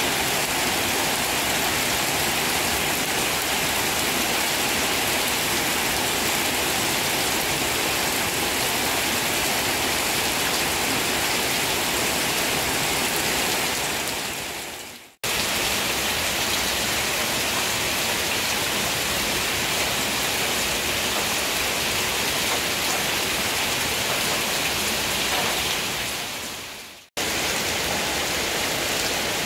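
Steady rain falling on leaves, rocks and wet stone paving, an even hiss of countless drops. It fades away to silence and cuts straight back in twice, near the middle and near the end.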